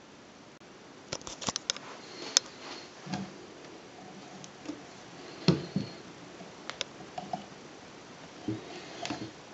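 Handling noise: scattered light clicks and soft knocks, a quick cluster early and one louder knock about halfway through, over a steady hiss.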